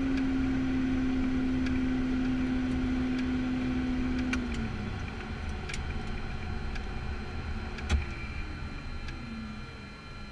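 Piper Cheyenne II's twin turboprop engines spooling down after shutdown, heard from the cockpit: a steady hum drops in pitch and fades about four and a half seconds in, and a fainter tone slides down near the end. A single sharp click comes about eight seconds in.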